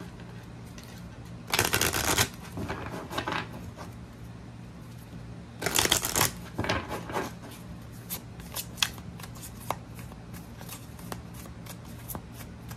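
A deck of oracle cards shuffled by hand: two riffle shuffles make rippling bursts about two and six seconds in, with quieter overhand shuffling and light card taps in between and after.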